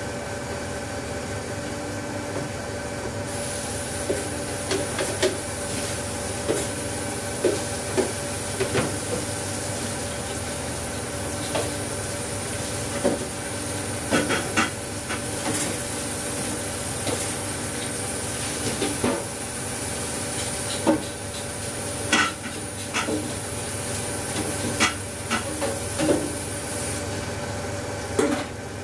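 Commercial kitchen background: a steady machinery hum with scattered sharp clinks and knocks of dishes and pots being handled. A thin high-pitched whine starts a few seconds in and stops shortly before the end.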